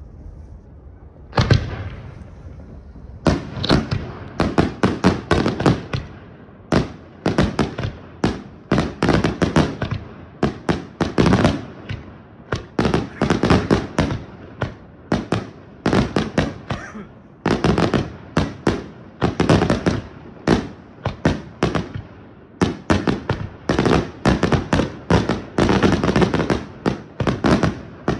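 Aerial firework shells bursting: a single loud bang about a second and a half in, then a dense barrage of rapid bangs, several a second, with only brief lulls.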